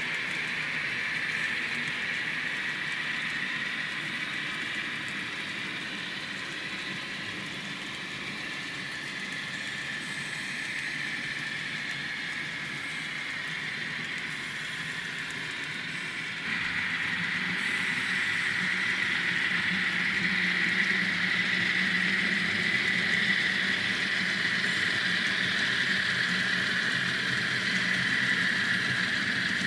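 Kato N scale model container train running on the track: a steady whir of the small motor and wheels on the rails, jumping louder a little past halfway.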